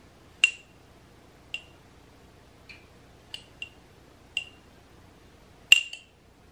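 Metal measuring spoon clinking against glass jars while dried oregano is spooned out of a glass spice jar into mason jars: about eight short, ringing clinks roughly a second apart, the loudest near the end.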